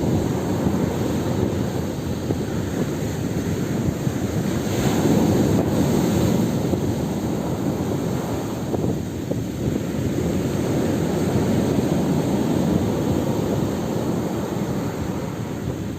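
Ocean surf: waves washing in continuously as a steady rushing noise, swelling a little about five seconds in, with wind on the microphone.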